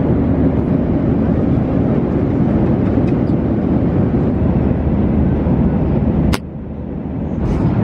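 Steady airliner cabin noise in flight: a loud, even rumble of engines and airflow. About six seconds in there is a sharp click, the noise drops suddenly and then swells back up.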